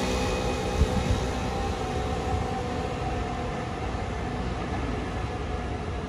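FDNY fire apparatus warning sounds: a stack of steady horn and siren tones slowly fading and sagging a little in pitch, over a low rumble of engine and traffic.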